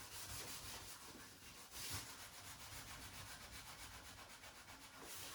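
Faint scrubbing of a Brillo steel-wool pad rubbed against a rusty kitchen sink, scouring the rust off.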